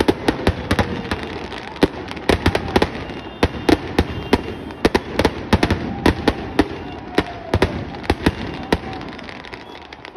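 Firecrackers packed inside a burning Ravana effigy going off in a rapid, irregular string of sharp bangs, thinning out in the last second or so.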